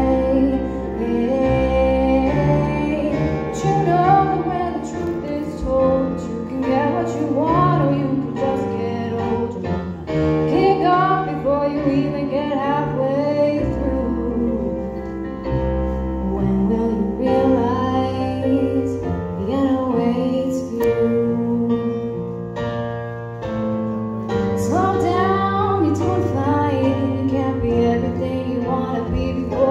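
A woman singing a slow song into a microphone, accompanied by held chords on an electronic keyboard.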